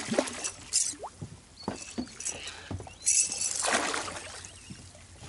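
A hooked redfish thrashing at the water's surface beside the boat: a sharp splash right at the start, a smaller one just under a second in, and the biggest, longest splash from about three seconds in.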